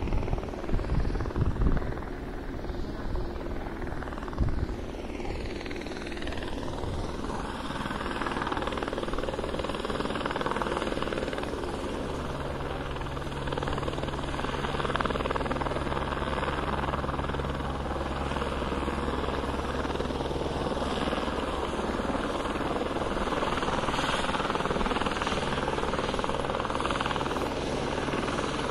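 Military police helicopter flying nearby: a continuous rotor and engine drone that grows slightly louder over time. Wind rumbles on the microphone in the first couple of seconds.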